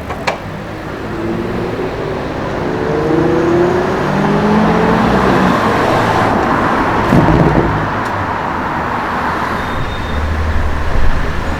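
BMW M5 F90's twin-turbo V8 accelerating, its engine note rising in pitch in steps for several seconds. There is a sharp crack just after the start and a louder burst about seven seconds in.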